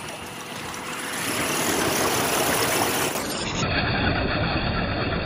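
Six-wheel-drive electric RC semi truck driving through shallow creek water: its tyres churn up a steady splashing rush mixed with the whir of its motors. The sound builds over the first couple of seconds and then holds.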